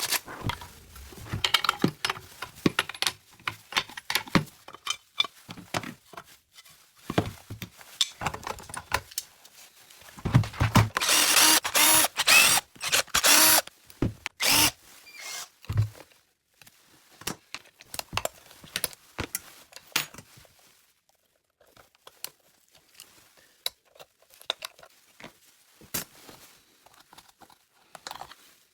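Workshop tool noise while a Stihl MS 380 chainsaw is being worked on: scattered clicks, knocks and rattles of tools and parts, with a loud burst of power-tool noise lasting about three seconds, starting some ten seconds in. The clicks thin out in the second half.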